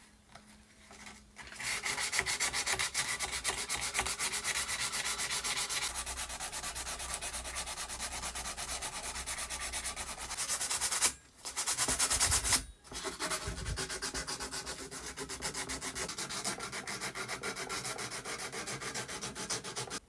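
Rapid back-and-forth abrasive rubbing strokes, like hand sanding or scrubbing, several strokes a second. They start about a second and a half in and break off briefly twice around the middle.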